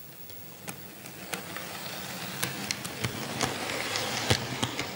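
DCC-ready ScaleTrains ES44AC model locomotive, with no sound decoder, running past close by: an electric motor and gear hum and wheel noise on the track, with sharp clicks. It grows louder as it approaches, peaks about four seconds in, and begins to fade near the end.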